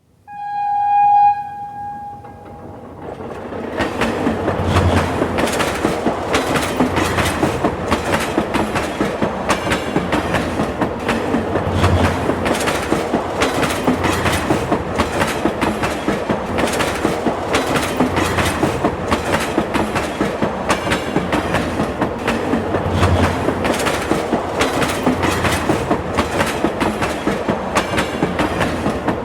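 A train sounds one steady-pitched horn blast lasting a second or two. The train then runs on with a continuous rumble and a steady clickety-clack of wheels over rail joints.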